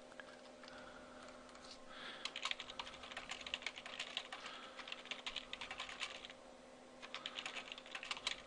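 Typing on a computer keyboard: a long quick run of keystrokes starting about two seconds in, a pause, then a shorter run near the end.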